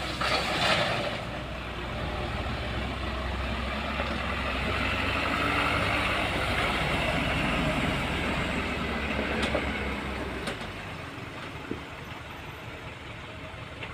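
Komatsu PC135 hydraulic excavator's diesel engine running under working load, the sound swelling and then easing off after about ten seconds, with a couple of short knocks.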